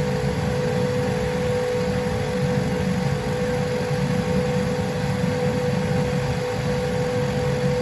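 Dental CAD/CAM milling machine milling a zirconia block: a steady spindle whine at one unchanging pitch over a constant mechanical hum and hiss.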